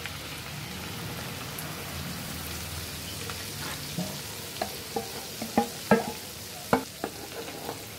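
Spiced oil sizzling steadily in a kadai as a wet ground masala paste is poured into it. From about halfway, a run of sharp pops and spatters as the paste hits the hot oil.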